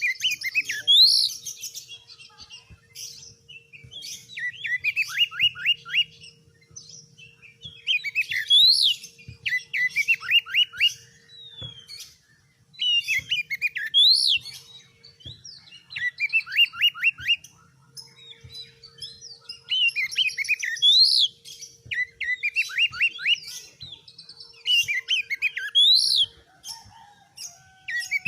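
Oriental magpie-robin (kacer) singing in bouts a few seconds apart, each a quick run of down-slurred notes with a sharp rising-and-falling whistle, separated by short pauses.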